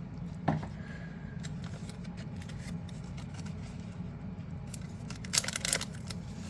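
Packaging being handled and opened by hand: a single sharp click about half a second in, then a quick flurry of crinkling and snipping clicks a little after five seconds, over a steady low hum.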